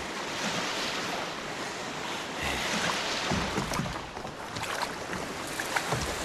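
Sea washing against a pebble beach, with wind, as a steady rushing noise. A few dull thumps come about halfway through, and a few sharp clicks of pebbles near the end.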